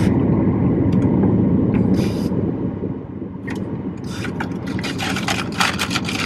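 A car's steady low rumble heard from inside the cabin, with light rustling and small clicks over it.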